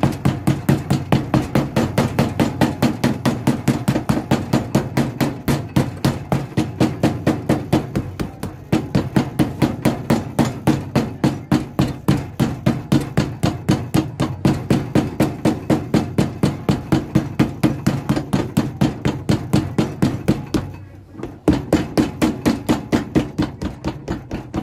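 Cobbler's hammer rapidly tapping a new leather sole, dampened after gluing, onto a shoe. There are about five dull strikes a second, with two brief pauses. The tapping beds the sole down and works the fiddleback waist into shape.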